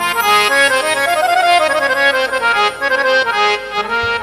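Instrumental interlude in a Hindu devotional hymn: a reedy keyboard instrument playing a melody of held notes that steps downward, between sung lines.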